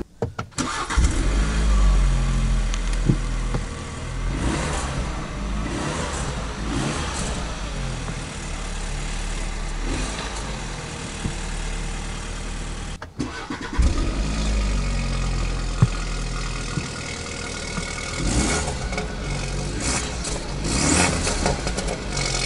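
BMW 630i Gran Turismo's 2.0-litre turbocharged four-cylinder starting up about a second in, flaring briefly and settling into idle. After a short break about halfway through, it starts and flares again.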